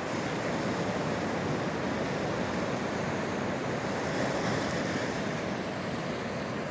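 Ocean surf washing steadily against the shore, with some wind.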